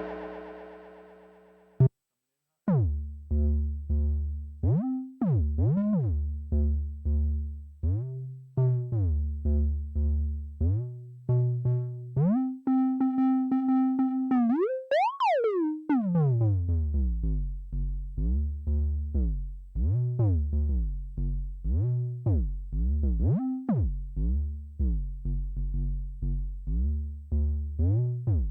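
Synth bass line of short notes that slide in pitch between one another, three or four notes a second. A long held note about twelve seconds in swoops sharply up and back down. It opens with a note fading out and a brief gap.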